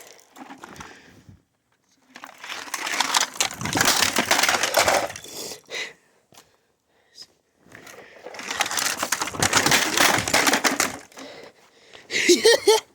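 Plastic vacuum cleaner parts crunching and clattering as they are smashed, in two long rattling spells separated by a short pause.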